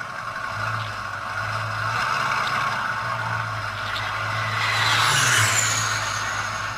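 Aircraft engine noise with a steady low hum. It swells to its loudest about five seconds in, with a high whine that falls in pitch, then eases off.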